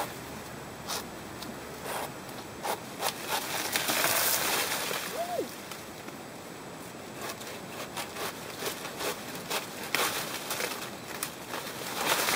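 Dry banana leaves and stalk rustling and crackling as they are pulled and broken by hand at the trunk: a run of short crackles, with a longer, louder ripping rustle about four seconds in and again near the end.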